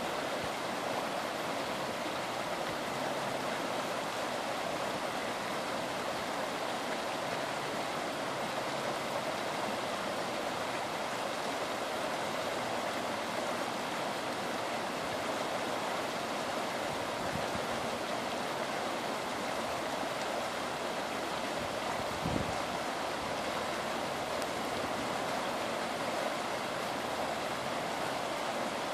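Floodwater rushing down a shallow, sandy creek bed: a steady, even rush of running water. One brief low knock about three quarters of the way through.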